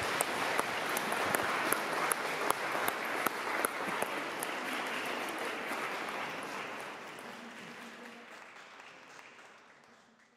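Audience applauding, many hands clapping at once, steady at first and then dying away over the last several seconds.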